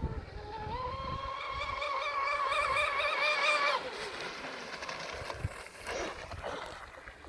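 Traxxas M41 electric RC boat's brushless motor whining at full throttle on a speed run. The high whine rises in pitch over the first second, holds, and fades away about four seconds in; a fainter whine comes back near six seconds.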